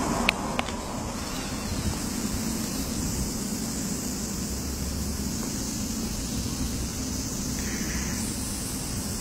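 Steady background noise with a faint low hum, and two sharp clicks about a third and two-thirds of a second in.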